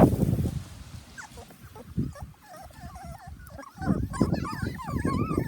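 A litter of puppies whimpering and squealing: several thin, high, wavering cries overlapping, growing busier in the second half, with low bumps and rumbles underneath.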